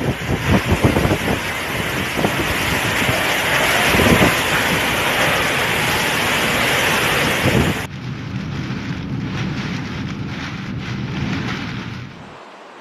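Hurricane-force wind and driving rain rushing past a phone microphone, swelling in gusts. About eight seconds in it drops abruptly to a quieter, thinner rush of wind, and it falls again near the end.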